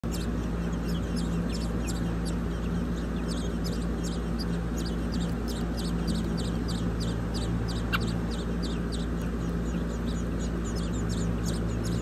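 Nestling songbirds begging with rapid, thin, high chirps, several a second, their mouths gaping for food, over a steady low hum. One louder rising whistle about eight seconds in.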